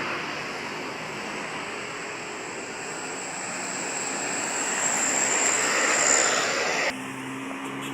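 Tour bus passing close by: engine and road noise, with a thin high whine, building to a peak about six seconds in, then cut off abruptly about seven seconds in.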